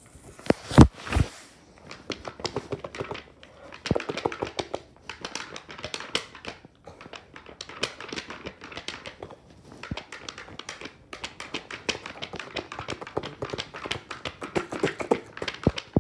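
Paperback book page being flipped rapidly back and forth, a fast, continuous run of paper flaps and taps, with a couple of louder knocks about a second in.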